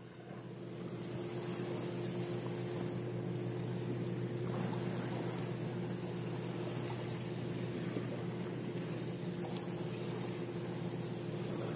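Motorboat engine running steadily, a low hum that swells over the first second or so and then holds even.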